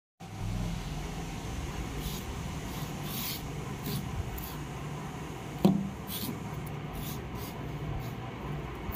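Hands shifting a small plastic-cased 12 V motorcycle battery on a stone floor: short scraping and rubbing sounds, with one sharp knock a little past halfway, over a steady low hum.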